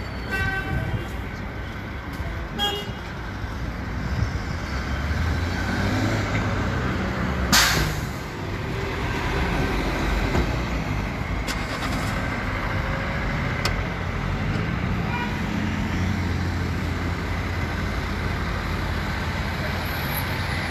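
Street traffic: engines of passing cars and trucks rising and fading, with short car-horn toots near the start and a loud sharp knock about seven and a half seconds in.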